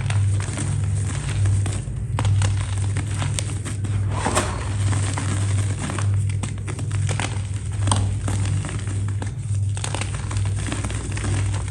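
A brittle, crispy material being snapped and crumbled by hand: irregular crackles and snaps, with a louder cluster about four seconds in. A steady, pulsing low hum runs underneath.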